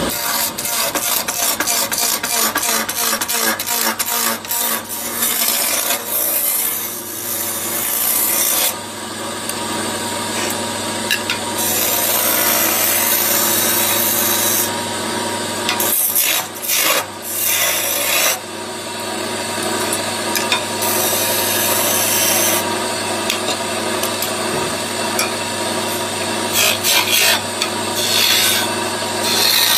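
Wood lathe spinning while a hand-held chisel cuts a wooden blank. For the first few seconds the tool chatters rapidly against the corners of the square blank, then settles into a continuous rough scraping as the piece is rounded and shaped, with brief breaks as the tool is lifted. The lathe motor hums steadily beneath.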